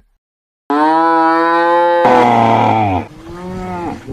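Cow mooing: after a short silence, one long steady moo, followed by a quieter moo that falls in pitch.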